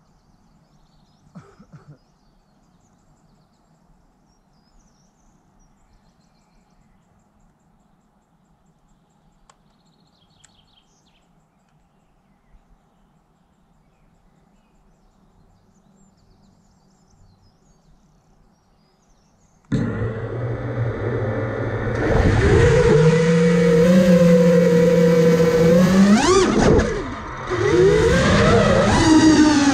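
Faint quiet background with a few small chirps, then, about twenty seconds in, the iFlight Nazgul5 quadcopter's four brushless motors start suddenly and loudly. Their whine rises and falls in pitch as the throttle changes in flight.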